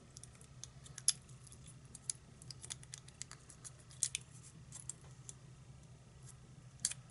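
Small metallic clicks and scrapes of a pin-tumbler lock core and a shim being handled during reassembly, with sharper clicks about a second in, about four seconds in and near the end.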